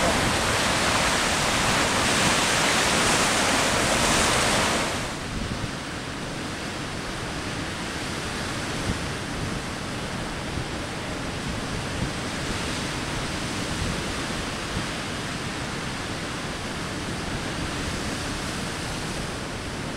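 Rushing noise of heavy surf breaking and washing over rocks. It drops suddenly to a quieter, steady wash of waves about five seconds in.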